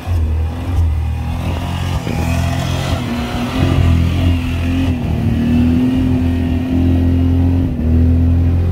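Jeep Grand Cherokee (WJ) engine held at high revs under heavy load as it climbs a snowy hill, its wheels spinning and throwing snow. The engine note rises slightly about halfway through and dips briefly near the end.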